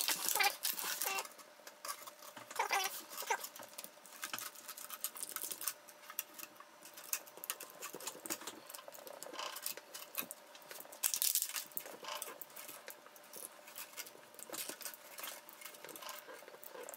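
Clear plastic film wrapping a scooter battery pack being handled and folded over the cells, crinkling in irregular crackles, loudest near the start and again about ten to eleven seconds in.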